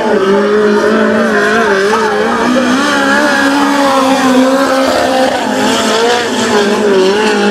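Midget race car engines running at speed on a dirt oval, the engine pitch rising and falling as the cars go through the turns and down the straights.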